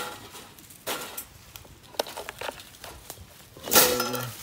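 Wire cage live traps rattling and clanking in several sharp bursts as they are handled to let young raccoons out, with rustling in the leaves; the loudest, longest clatter comes near the end.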